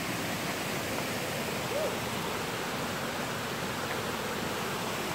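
Steady rush of Moxie Falls, whitewater pouring over and between granite ledges into a pool.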